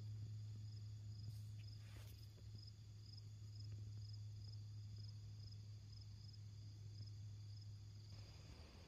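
Faint insect chirping, cricket-like: a high-pitched chirp repeating about twice a second, over a steady low hum.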